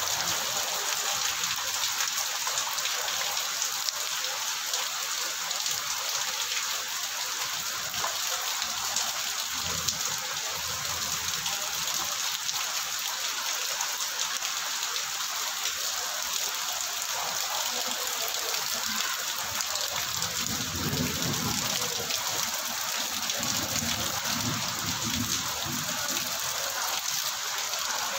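Heavy rain falling steadily on wet ground and standing water, an even, dense hiss of drops.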